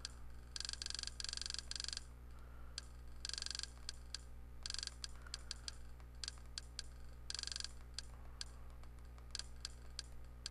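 Menu navigation clicks as a TV-box channel list is scrolled: short runs of very fast clicking, each under a second long, with single clicks in between, over a steady low hum.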